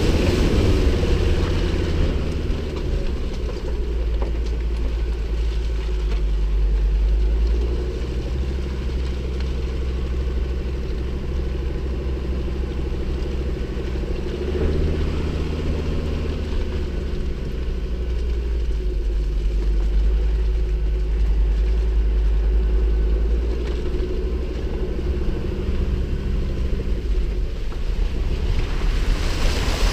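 Ford Ranger T6 pickup truck driving slowly over a muddy track: a steady low engine rumble whose pitch shifts a few times as the throttle changes.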